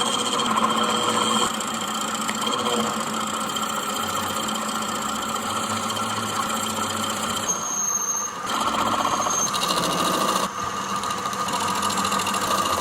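Machine-shop machinery running steadily with a constant hum and whine, its sound changing abruptly several times.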